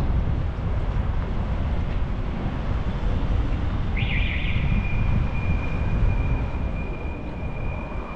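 Riding-camera audio of urban cycling: steady low rumble of wind on the microphone and passing traffic. About four seconds in, a steady high-pitched tone starts and holds.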